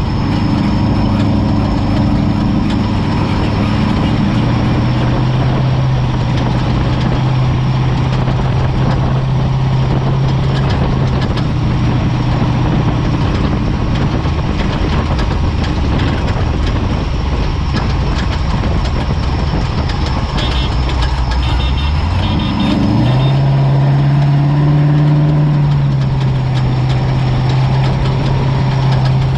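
Off-road race vehicle's engine running under a steady haze of mechanical and driving noise, its pitch holding and then stepping to new levels. About three-quarters of the way through, the engine revs up quickly and the sound grows a little louder.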